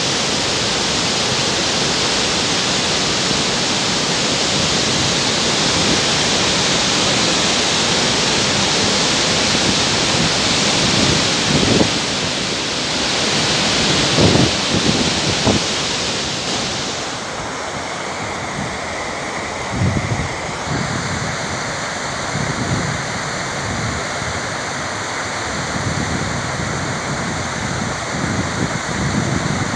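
Mountain stream rushing steadily over rocks, a continuous loud hiss of water, with a few short knocks midway through.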